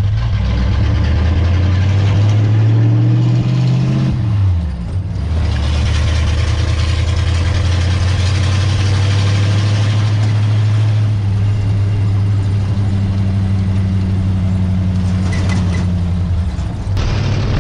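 Ford flathead V8 of a 1929 Ford roadster pickup under way. The engine note climbs for about four seconds, falls sharply at a gear change, then pulls steadily at a cruising speed and drops again near the end. Wind and road noise run underneath.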